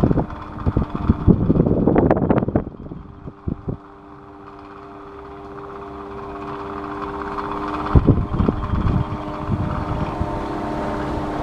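Electric fan running: a steady motor hum with airflow hiss that grows steadily louder over several seconds. In the first three seconds there is rough rumbling with a few knocks.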